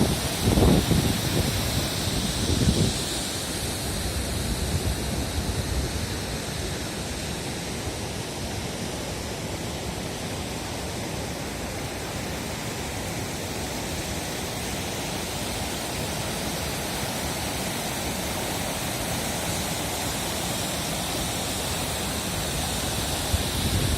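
Large waterfall: a steady, even rush of falling water. Wind buffets the microphone in gusts during the first few seconds.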